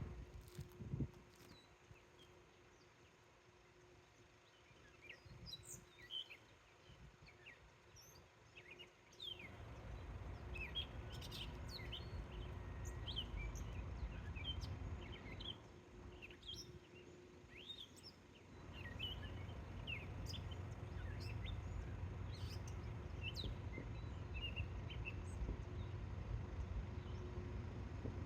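Many small birds chirping and calling in quick, short notes. A low rumble comes in about nine seconds in, eases off briefly, and returns about nineteen seconds in.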